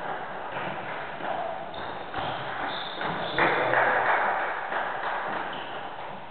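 Table tennis ball clicking against the bats and the table in a rally, sharp irregular taps, with a louder stretch of noise in the middle.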